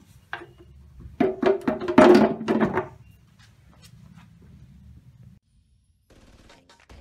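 Metal clanking and thunks, with some ringing, as the stamped-steel oil pan is set onto the upturned engine block, loudest in a burst of clatter about a second in that lasts under two seconds.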